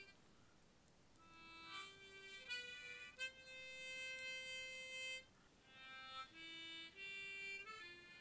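Harmonica playing a slow tune of long held notes, with a brief pause near the start and another midway.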